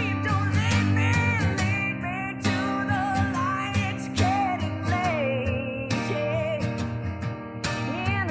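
Music: a song with a wavering singing voice over guitar and other instruments.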